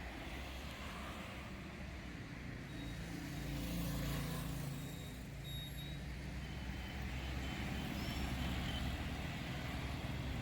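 Steady low engine rumble with a slight swell about four seconds in, and faint thin high-pitched whines coming and going.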